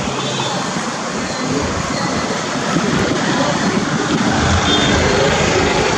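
Steady city street noise: a continuous mix of traffic and general hubbub with no single clear source.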